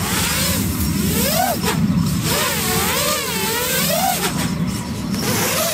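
FPV quadcopter's brushless motors and propellers whirring in flight, the pitch swinging up and down again and again as the throttle changes, over a low rushing of air.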